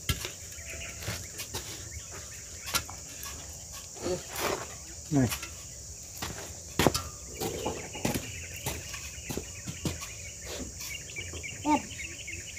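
Steady high-pitched drone of forest insects, with scattered short knocks and clatter and a couple of brief falling vocal sounds.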